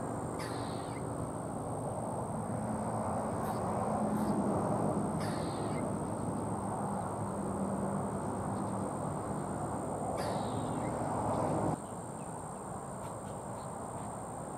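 Short animal calls repeated about every five seconds over a steady background rush and a thin, steady high whine. The rush drops suddenly near the end.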